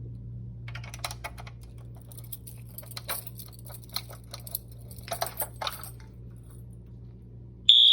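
Irregular clicks and rattles of something small being handled, over a steady low hum. Right at the end a fire alarm starts sounding a loud, steady high-pitched tone.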